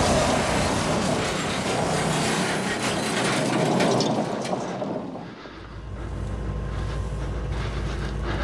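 Car being driven hard: a dense rush of engine and tyre noise with some clattering, which dies away about five seconds in, leaving a steady low hum.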